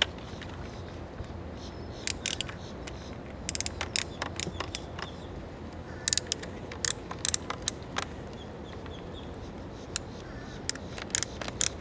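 Ratchet buckles on Hyperlite wakeboard-style boot bindings clicking in quick runs as the straps are cinched tight, over a steady low background noise.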